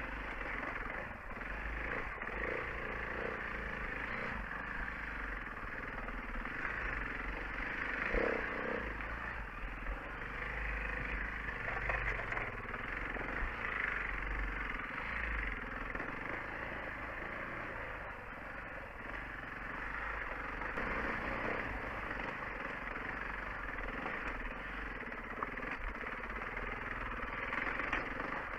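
Enduro dirt bike's engine running at trail pace on rocky ground, heard through a helmet-mounted camera, its level swelling and easing a little as the rider works the throttle.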